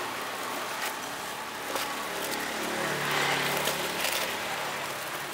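Street traffic noise with a motor vehicle's engine passing by, loudest about three seconds in, and a few faint clicks.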